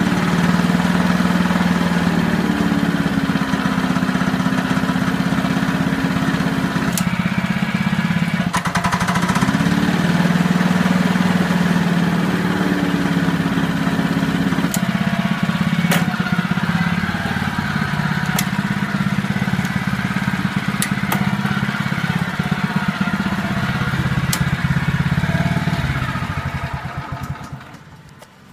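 Honda walk-behind lawn mower's small engine running steadily, with a few sharp clicks over it. The engine cuts off about a second before the end.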